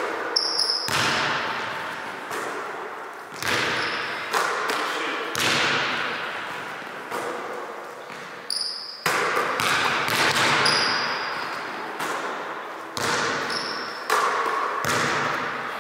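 Basketball bouncing on a hardwood gym floor, about eight bounces spaced a second or two apart, each echoing through the large hall. Short high sneaker squeaks on the floor come in now and then.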